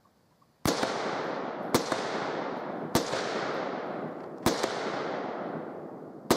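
AR-15 rifle firing five single shots at an unhurried pace, about a second to a second and a half apart, each crack trailing off in a long echo.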